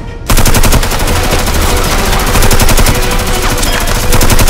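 Rapid, continuous automatic gunfire that starts abruptly about a third of a second in, a fast even train of sharp shots.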